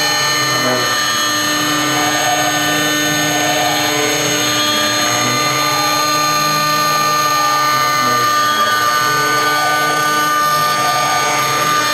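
6090 CNC router's spindle running with a fine end mill carving relief into a metal coin blank: a steady whine of several tones over the cutting noise.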